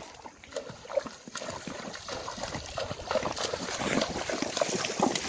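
Horses wading across a shallow river, their legs and hooves splashing through the water in an irregular churning rhythm that grows louder after the first couple of seconds.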